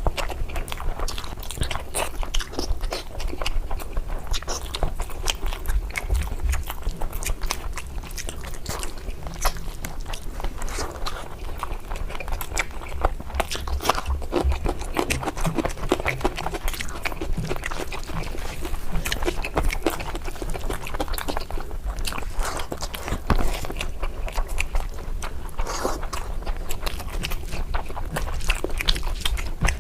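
Close-miked eating sounds: steady chewing and biting of mouthfuls of curry, with many small wet mouth clicks.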